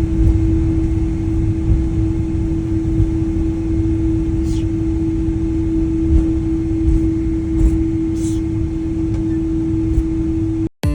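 Steady low rumble of a moving vehicle heard from inside, with a constant mid-pitched hum over it and a few faint clicks. It cuts off abruptly near the end.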